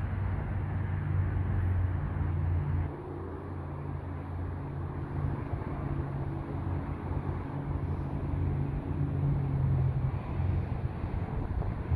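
Motorcycle engines running at low speed across the lot, a steady low engine hum whose pitch shifts slightly, with wind on the microphone.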